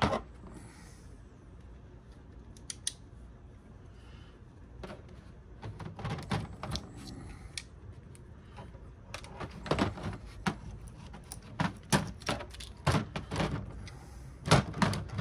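Irregular metallic clicks, clanks and knocks as pliers grip and wrench at a small metal part pulled from a DVD player, with pieces knocking on the work table. The clicks are sparse at first and come thick and sharp over the second half.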